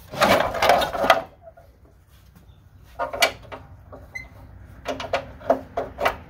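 A pickup's grille header panel being handled and worked off its radiator support: a scraping rattle in the first second, one knock about three seconds in, then a quick run of light knocks and clicks near the end.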